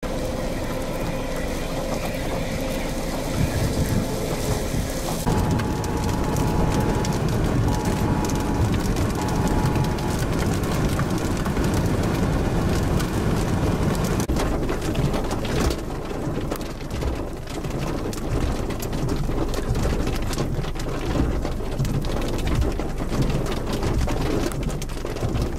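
Thunderstorm wind and rain: a steady rushing noise with frequent crackles, changing character about five seconds in.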